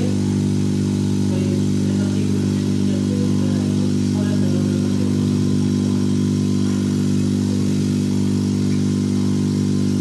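Hermetic refrigerator compressor running on a bench test circuit: a steady, loud low hum with a stack of even overtones.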